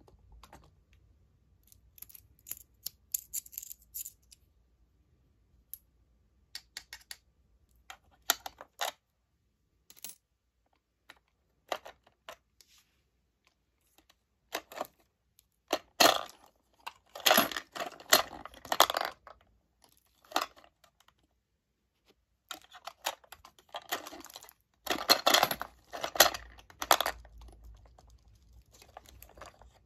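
Mini Dubble Bubble gumball machine being worked by hand: clicks and rattles from the dispensing knob turning and gumballs dropping out. They come in several short bursts, the busiest and loudest about halfway through and again near the end.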